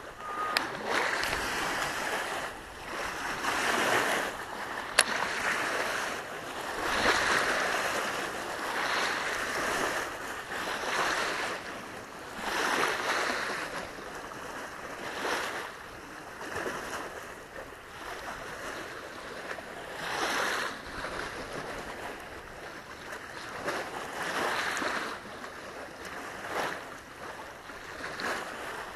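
Small lake waves lapping and washing onto the shore, swelling and fading every couple of seconds. A single sharp click about five seconds in.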